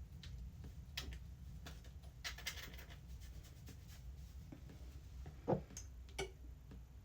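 Faint handling noises: scattered taps, clicks and rustles over a low steady hum, with one louder bump about five and a half seconds in.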